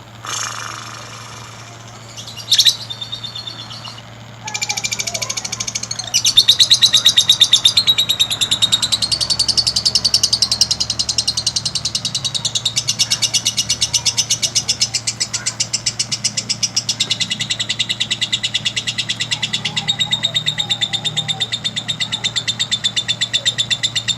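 Lovebird singing one long, unbroken, very rapid chattering trill: the long 'ngekek' song that bird keepers use to stimulate other lovebirds. It starts about four seconds in, after a short call and a sharp click. A steady low hum runs underneath.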